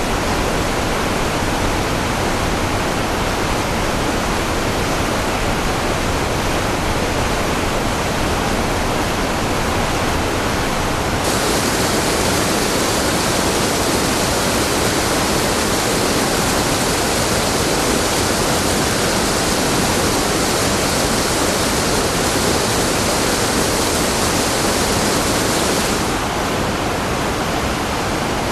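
Waterfall: a steady rush of falling water. About eleven seconds in it turns brighter and hissier, then goes back to a duller rush a couple of seconds before the end.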